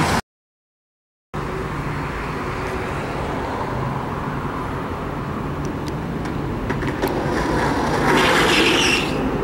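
Steady city traffic noise, cut off by about a second of dead silence near the start. A few light clicks follow later, and about eight seconds in a skateboard's wheels rolling over concrete rise to a louder hiss.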